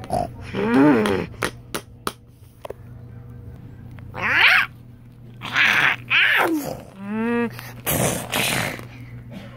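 A voice making pretend creature noises for toy dinosaurs and dragons: several growls and screeches that glide up and down in pitch, and a breathy hissing roar about eight seconds in. A few light clicks in the second and third seconds.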